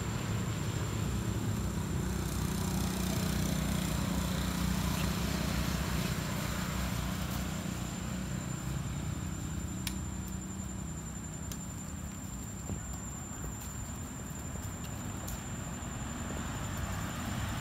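Steady low rumble of road traffic, strongest in the first half and easing off after about eight seconds. A thin high whine runs under it, with a few faint clicks.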